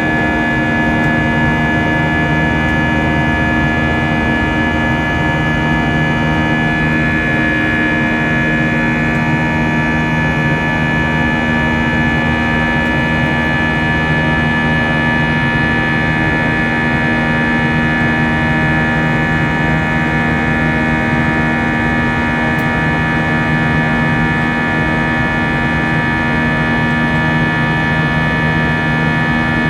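Airbus A319's IAE V2500 turbofan engines running steadily in flight, heard from inside the cabin: a loud, even drone carrying several fixed whining tones.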